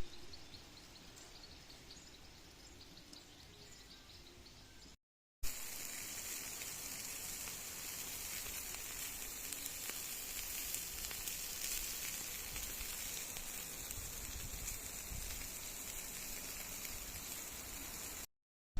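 Food sizzling on a barbecue grill: a steady hiss with fine crackle that starts after a cut about five seconds in. Before it there is a quieter stretch with a few faint high chirps.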